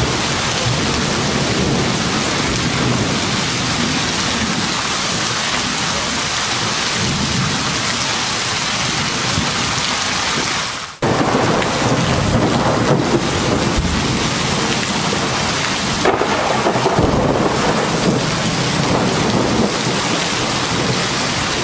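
Heavy rain pouring steadily during a thunderstorm, with thunder rumbling underneath. The sound drops out for a moment about halfway, then comes back a little fuller, with a sharper burst about two-thirds of the way through.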